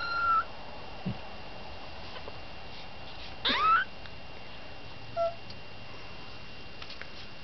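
Two-week-old kitten mewing: a high, rising mew right at the start, a louder rising mew about three and a half seconds in, and a short faint squeak a couple of seconds later.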